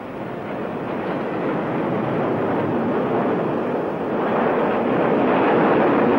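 A steady rushing noise that grows gradually louder.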